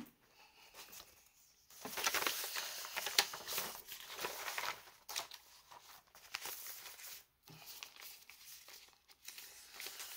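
Plastic packaging crinkling and rustling as it is handled, starting about two seconds in and going on in uneven bursts with brief pauses.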